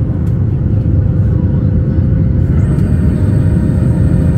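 Cabin noise in a Boeing 737 MAX 8 at low altitude shortly after takeoff: a loud, steady rumble of its CFM LEAP-1B engines and airflow, with a faint steady whine. A thin high tone comes in about two and a half seconds in.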